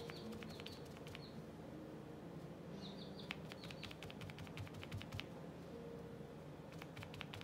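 Fingertip dabbing wet paint onto paper: faint, quick little taps in runs, one near the start, a denser run from about three to five seconds in, and a few more near the end.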